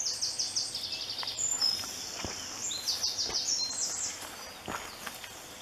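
Woodland songbird singing: rapid runs of short, high repeated notes in several phrases, which fade out about four seconds in.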